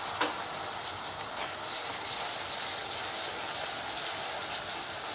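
Tomato purée sizzling as it fries in hot oil and masala in a kadhai, just after being poured in: a steady crackling hiss.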